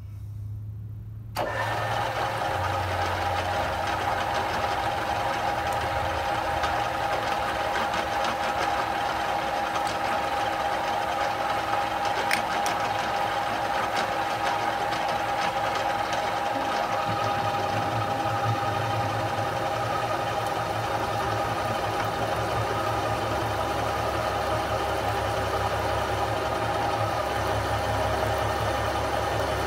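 Geared-head drill press running in low gear at about 200 RPM, a 1.5-inch twist drill cutting into thick steel plate. A low motor hum is joined about a second and a half in by a steady, loud whine and grinding that holds without a break.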